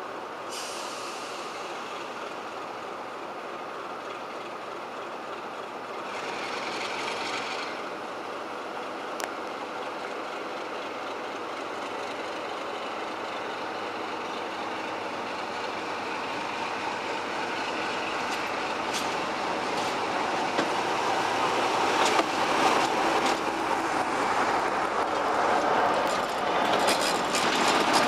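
British Rail Class 47 diesel locomotive's Sulzer twin-bank engine running as it pulls a train of coaches out of the station. It grows louder as it approaches and passes close by, with wheels clicking over rail joints and points near the end.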